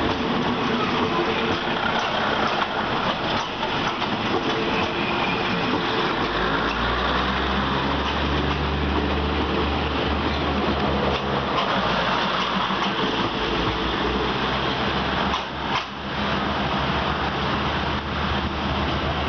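Diesel railcar train running past at close range, its wheels rolling on the rails. The deep drone of an underfloor diesel engine comes up strongly about a third of the way in and fades after about 13 seconds.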